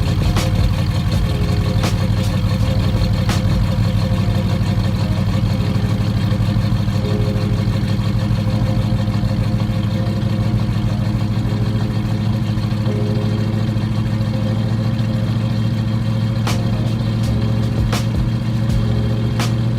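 Jeep Grand Wagoneer's AMC 360 V8 engine idling steadily, with a few sharp clicks now and then.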